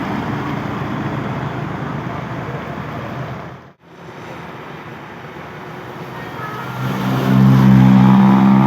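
Road traffic passing, with a momentary dropout just before halfway. In the last couple of seconds a large vehicle, likely a bus, comes close with a loud, steady low tone.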